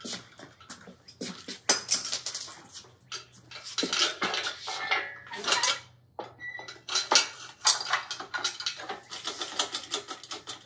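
Hand tools clinking and clanking against metal engine parts during a flathead Ford V8 teardown, then a run of quick, evenly spaced clicks, about four a second, in the second half.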